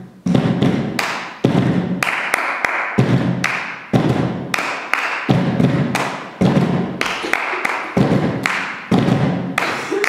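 Hand percussion: palms thumping on upturned plastic tubs mixed with hand claps, in a repeating rhythm of about two to three strikes a second.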